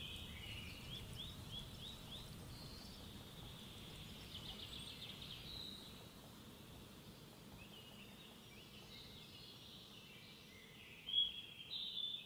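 Faint birdsong: small birds chirping in short, quick, high-pitched notes over a quiet background hiss, with a louder cluster of chirps near the end.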